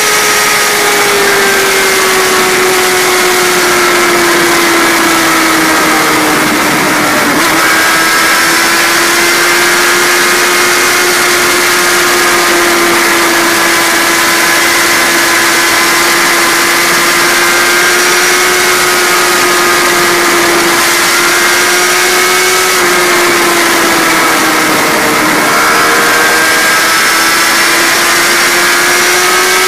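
A vehicle engine running at high, nearly steady revs over a loud rushing hiss. Its pitch dips briefly twice, about seven seconds in and again a few seconds before the end.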